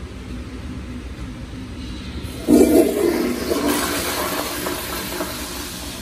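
American Standard toilet flushing: a sudden loud rush of water about two and a half seconds in, then rushing water that slowly fades.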